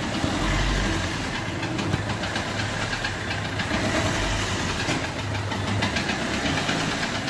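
Peugeot 1.3 HDi four-cylinder diesel engine running at a steady speed with a rhythmic ticking knock. The knock comes from lost compression: a bent valve not closing fully, a noise that resembles a leaking fuel injector.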